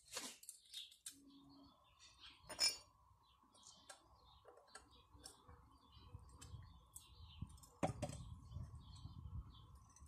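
Light metal clinks and taps from the motor of a Pedrollo JSWm 15MX pump being handled during reassembly, the loudest about two and a half seconds in. A faint steady tone sits underneath.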